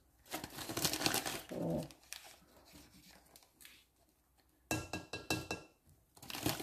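Metal measuring spoon scraping and scooping cornstarch and tipping it into a bowl of mashed potato. About five seconds in, a few light clinks of the spoon on the container ring briefly.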